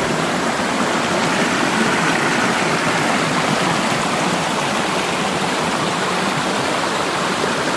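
Steady rush of a Highland river tumbling over a small waterfall into a pool.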